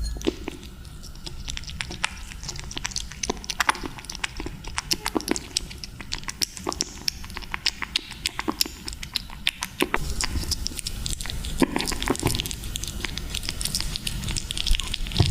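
Kittens eating tuna: many quick, irregular chewing and lapping clicks, with a low rumble joining about ten seconds in.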